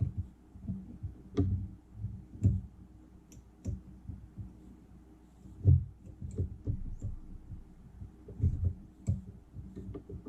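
Irregular soft thumps and a few sharp clicks from hands working at a fly-tying vise on a desk, over a faint steady low hum.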